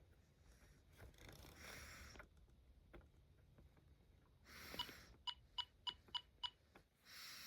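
Weather radio giving a short beep with each button press: five quick beeps about a third of a second apart as its clock is set through a hidden menu. Before them come a few soft puffs of noise close to the microphone.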